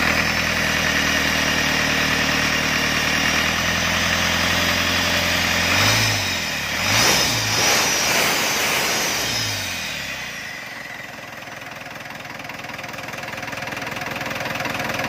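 Isuzu 4BC2 four-cylinder diesel with a newly fitted turbocharger idling steadily, then revved up and back down several times in quick succession about halfway through. After that it runs quieter.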